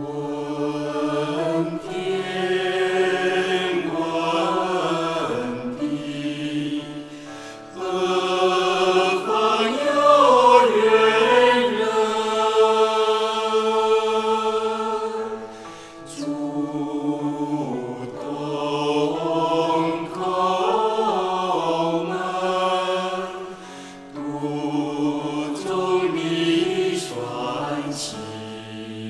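Slow Chinese devotional song: a singing voice with instrumental backing, sung in long phrases with a short break about every eight seconds.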